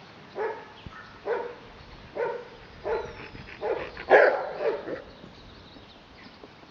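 Pharaoh Hound puppy barking at sheep, about six short barks under a second apart, the loudest a little after four seconds in, then a lull.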